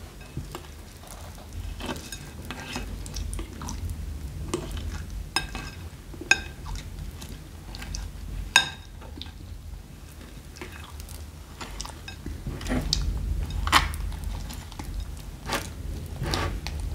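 A thin metal spoon stirring and mashing clay, foam and plastic beads into glue in a glass bowl: irregular wet squelching and crackling, with a few sharp clicks of metal against the glass.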